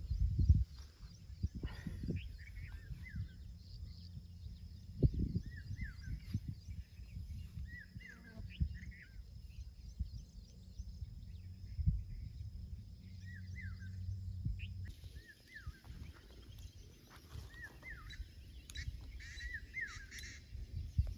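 Birds calling in short, curving chirps repeated every second or two, over a faint steady high-pitched hum. A few low thumps stand out, the loudest near the start and again about five and twelve seconds in.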